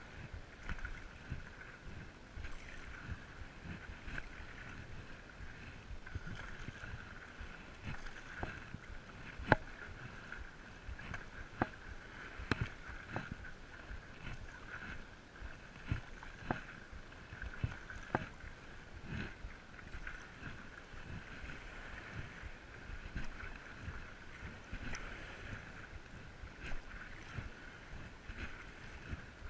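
Stand-up paddleboard being paddled: steady water wash and lapping, with sharp knocks or splashes of the paddle strokes every second or two through the middle of the stretch.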